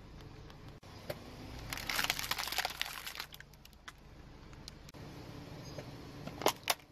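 Hard plastic crackling and snapping as a car tyre rolls over and crushes small plastic toys, a dense run of cracks about two seconds in. Near the end, two sharp cracks as a small plastic bucket gives way under the tyre.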